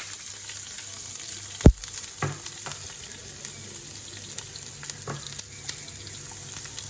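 Chopped onion and curry leaves sizzling in hot oil with mustard seeds, the first stage of a South Indian tempering, while being stirred in the pan. A single sharp knock stands out about one and a half seconds in, with a few softer knocks later.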